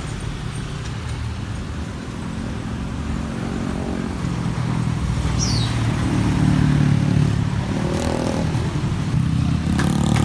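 Road traffic: a low vehicle engine drone that grows louder from about four seconds in, as a vehicle approaches and passes.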